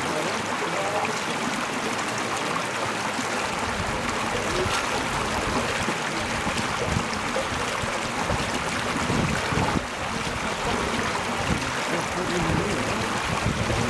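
Shallow creek water running steadily over stones and around the barrier, with uneven low rumbling from about four seconds in.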